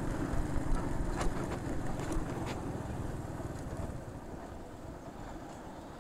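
Motorcycle engine running at low speed as the bike rolls into a parking area, with a few light clicks in the first half; the engine sound drops away after about four seconds as the bike slows.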